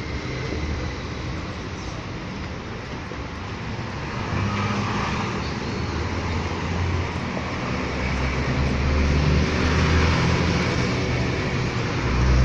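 Steady street traffic on a busy city avenue, with the low hum of a large vehicle's engine coming in about four seconds in and growing louder near the end.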